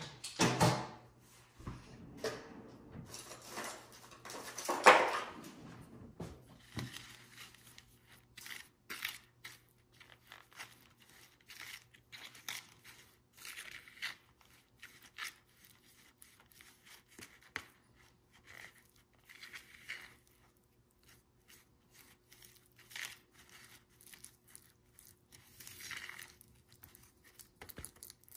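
Plastic spoon stirring and scraping grout powder and water in a plastic bowl, in many short, irregular scraping strokes. Louder handling sounds come in the first few seconds, the loudest about five seconds in.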